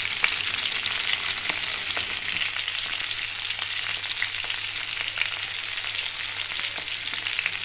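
Spice-coated brinjal pieces, just added to hot oil in a frying pan, sizzling steadily with many small crackles and a few sharper pops.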